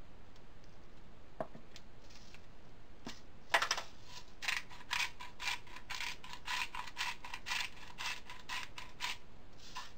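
Hand-turned seasoning grinder being twisted over the pan, giving a quick ratcheting clicking of about four clicks a second. The clicking starts about three and a half seconds in and stops about a second before the end.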